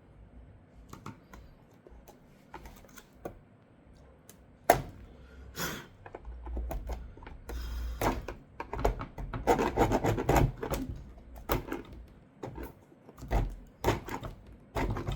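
Hard plastic parts of a Mazda RX-7 taillight being handled and scraped: scattered clicks and knocks, with a stretch of steady rubbing and scraping in the middle.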